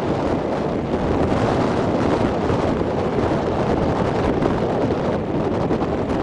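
Steady wind buffeting the microphone over the running diesel engine of a JCB backhoe loader.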